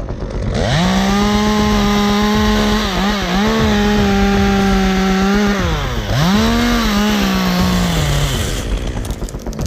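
Chainsaw revved up to a steady high-pitched full-throttle whine, dipping briefly twice, then winding down and cutting out near the end.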